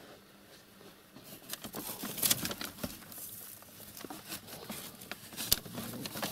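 Rustling and scrabbling with scattered sharp taps, starting about a second in; the loudest tap comes near the end.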